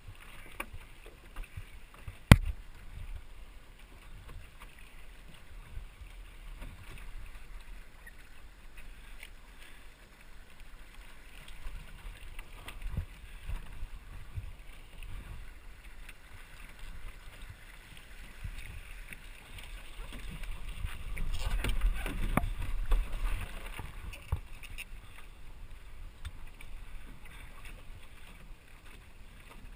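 Water rushing and splashing along the hull of a small sailboat under way, with gusty wind noise on the microphone. A single sharp knock about two seconds in, and a louder gust of wind and water a little past the middle.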